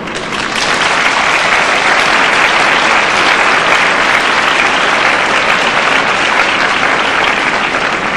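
Audience applauding: a hall full of people clapping, swelling up within the first second and then holding steady.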